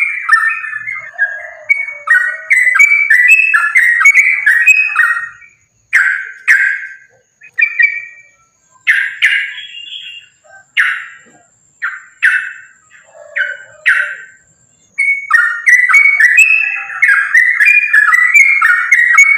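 Yellow-vented bulbul (trucukan) singing rapid bubbly chattering phrases in a fast, continuous 'ropel' run. It breaks into separate short phrases with gaps from about six seconds in, then returns to the fast run near the end.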